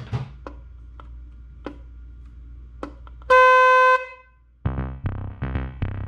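A short, loud blast, under a second, from the small electric 'train horn' newly fitted to a Yamaha WR250R motorcycle: one steady tone that sounds nothing like a train, after a few light clicks. Upbeat electronic background music starts near the end.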